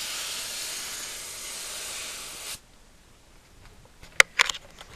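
Air hissing steadily out of a four-wheel drive's tyre valve as the tyre is let down for a rough bush track; the hiss cuts off suddenly about two and a half seconds in. A couple of sharp clicks follow near the end.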